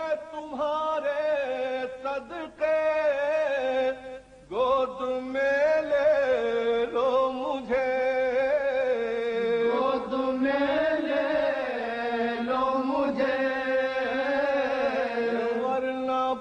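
A man chanting a noha, a Shia lament, unaccompanied in long, wavering held phrases, with a brief break about four seconds in.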